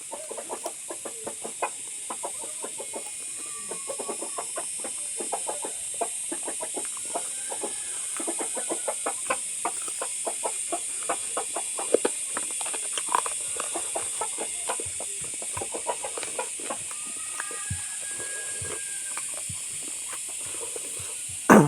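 Close-up mukbang eating sounds: rapid wet chewing and mouth clicks, several a second, over a steady hiss.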